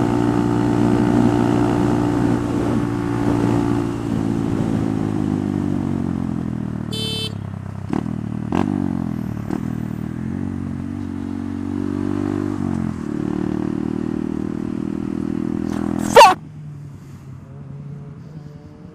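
Honda Grom's 125 cc single-cylinder four-stroke engine cruising, with wind hiss on the helmet microphone; its note falls as the bike slows, a short high beep sounds about seven seconds in, there are a few sharp clicks, and the note holds steady again. Near the end a loud brief bang is followed by the engine dropping to a quiet idle as the bike stops at traffic lights.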